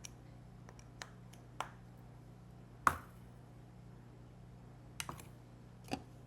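Hard plastic parts of an immersion blender and its accessories being handled, set down and fitted together: a scattering of sharp clicks and knocks, the loudest about three seconds in and a quick pair around five seconds in, over a low steady hum.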